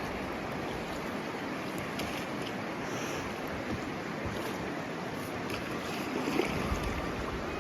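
River water running steadily past, a constant rushing noise, with a few sharper sounds about six seconds in.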